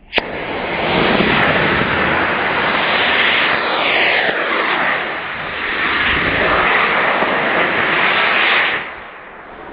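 Estes D12-3 model rocket motor on a mousetrap car igniting with a sharp crack, then burning with a loud, steady rushing hiss that dips briefly midway and cuts off near the end.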